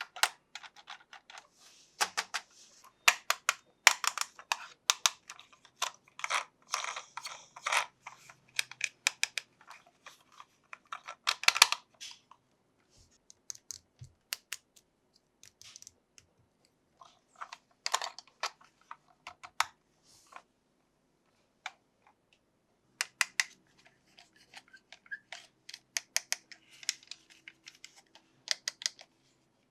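Toy packaging being handled and opened by hand: rapid sharp plastic clicks, crinkles and tearing in irregular bursts with short pauses.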